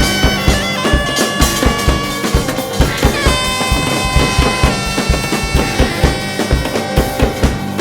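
Korean traditional fusion (gugak) ensemble music played live: a reedy wind instrument holds long notes over a steady drone, with drums keeping a regular beat.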